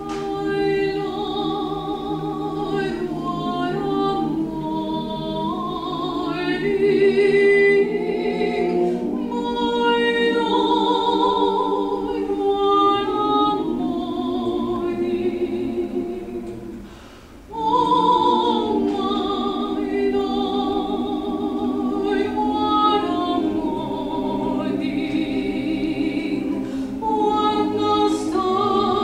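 A soprano and a male choir singing together with long held notes; the voices break off for a moment a little past the middle, then come back in.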